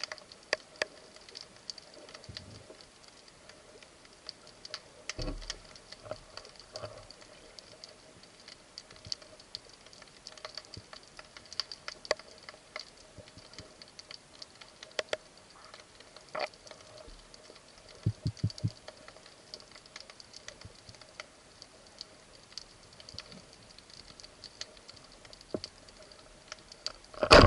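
Underwater sound on a rocky reef: scattered sharp clicks and crackles over a faint steady hum, with a short run of low knocks about two-thirds through. At the very end comes a loud sudden crack, the speargun being fired.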